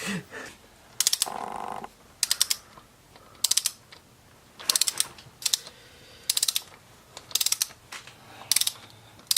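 Ratchet of a torque wrench tightening camshaft bearing cap bolts: short runs of quick ratchet clicks, a run about every second as the handle is swung back and forth.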